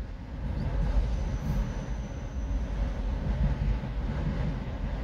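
Freight train of autorack cars rolling past: a steady rumble of steel wheels on the rails. A faint high wheel squeal sounds for about a second, starting about a second in.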